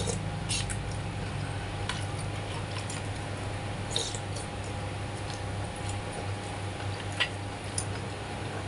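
Sips and slurps of hot takwe (ginger drink) taken straight from a plastic bowl, with a few light clicks of a metal spoon against the bowl, over a steady low hum.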